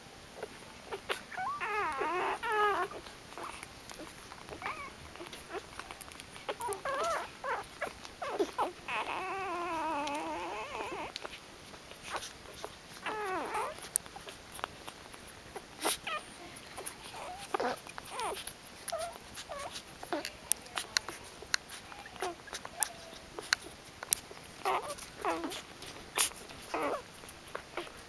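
Newborn pit bull puppies whimpering and squealing in wavering high cries, with a longer run of cries in the first half. Many short sharp clicks come through the second half.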